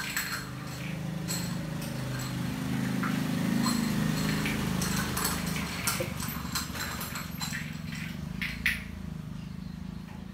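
A wet ginger cat being bathed and held, rumbling low and continuously in its throat, with scattered splashes of water and the rub of hands on its wet fur.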